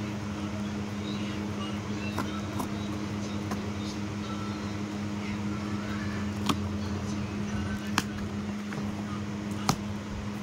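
Cardboard shipping box being handled and torn open by hand, with scraping and a few sharp snaps in the second half, over a steady low hum.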